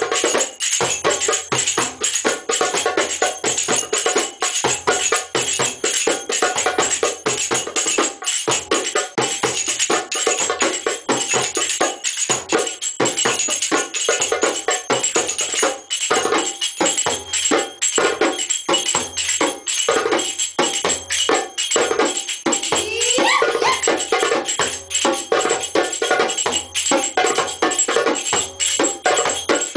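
Hand drums struck by hand in a fast, steady, dense rhythm by two drummers playing together, with a bright jingling running along on top.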